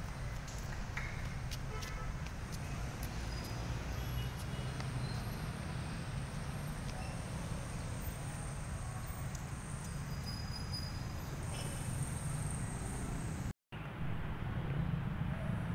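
Street traffic ambience: a steady low rumble of vehicles, with a few short high chirps and light ticks over it. The sound cuts out for a moment near the end.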